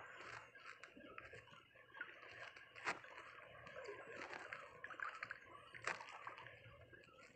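Faint, scattered small clicks and ticks of a small spinning reel (Kaizen Fujin 800) being wound in, over light lapping of shallow seawater. Two sharper clicks stand out, about three seconds apart.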